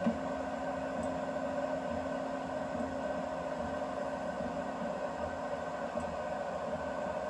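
BIBO Touch X dual-extruder 3D printer running a print: the motors drive the print head in a steady whine of several held tones, over the even whir of the print-head cooling fans.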